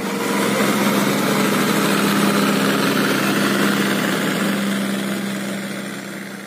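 John Deere tractor diesel engines running hard and steady as two tractors pull against each other in a tug-of-war, with a constant drone; the sound slowly fades in the last couple of seconds.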